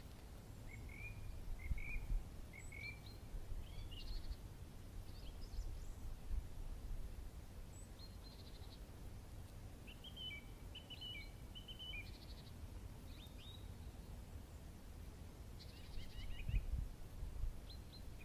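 Small birds chirping and trilling on and off, short high notes and quick trills, over a steady low rumble.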